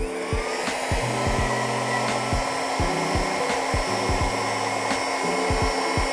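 Heat gun switched on, its fan whine rising briefly as it spins up, then blowing steadily. It is heating a threaded bolt to soften the threadlocker holding it.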